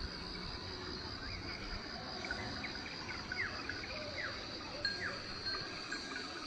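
Steady high-pitched insect drone, crickets or similar, with a bird's short falling chirps scattered over it.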